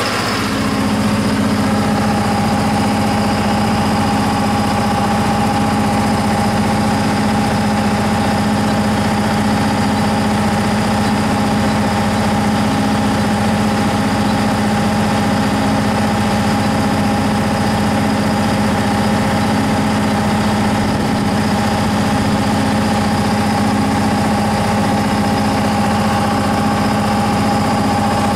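John Deere 4045HF285 4.5-litre four-cylinder turbo diesel of a Multitek MG100 generator set running steadily with no load, heard from outside its sound-attenuated enclosure. The sound is an even hum with a steady higher whine over it, unchanging throughout.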